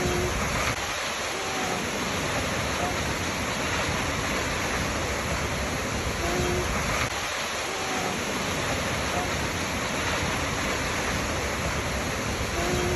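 Waterfall: a steady, even rush of falling water, with a few faint short tones recurring about every six seconds.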